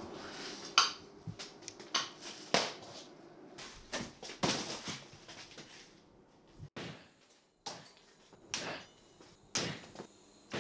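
Bicycle tires being stabbed with a blade and popped: several short, sudden bursts of noise a second or two apart, with quieter gaps between.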